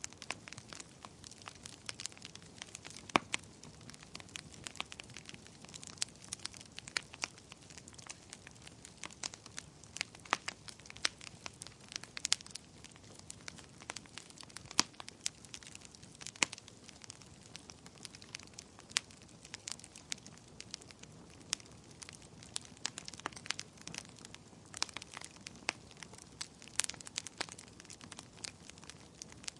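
Wood campfire crackling: irregular sharp pops and snaps, a few louder ones, over a soft low hiss of burning.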